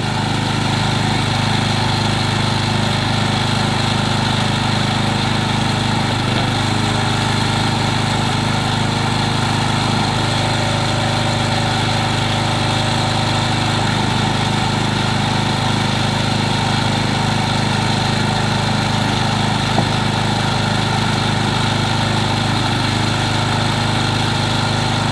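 A log splitter's small engine runs steadily throughout, with a single brief sharp click about three-quarters of the way through.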